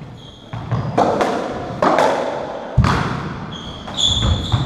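Racketball rally on a squash court: the ball is struck and hits the walls in three sharp, echoing smacks about a second apart, with shoes squeaking on the wooden floor near the start and again near the end.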